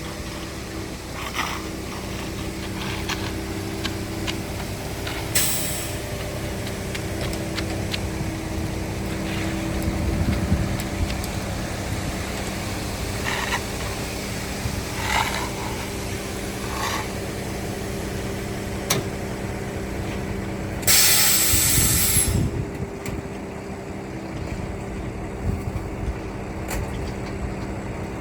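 A heavy truck's diesel engine runs steadily, with scattered knocks and clatters. Near the end there is a loud hiss of air lasting about a second and a half, like an air brake.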